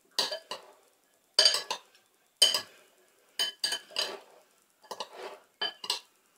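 Metal spoons scraping and clinking against a ceramic bowl as a pasta salad is tossed and stirred, in about ten short strokes at irregular spacing.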